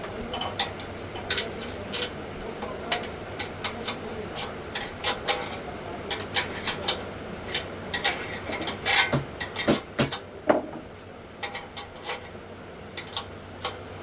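Irregular clicks and knocks from handling and fitting parts of an industrial sewing machine stand, with a busier cluster about nine to ten and a half seconds in.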